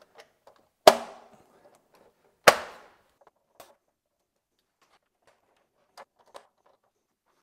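Two sharp snaps about a second and a half apart as a new 50-amp Square D QO two-pole breaker is pressed onto the panel's bus bars and clicks into place. A few faint clicks of tools and wire handling follow.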